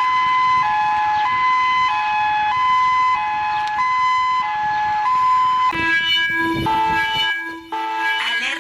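Emergency alert siren: a two-tone hi-lo siren switching between a lower and a higher pitch roughly every two-thirds of a second over a steady hiss. About six seconds in it changes to a different pattern of stepped tones at several pitches, with short breaks.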